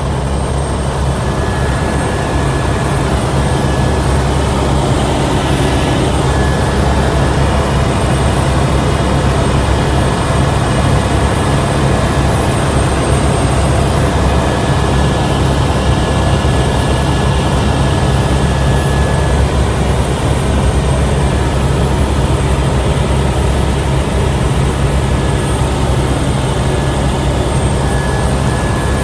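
Helicopter in flight, heard from inside the cabin: a loud, steady low rumble of rotor and engine with a thin high turbine whine over it.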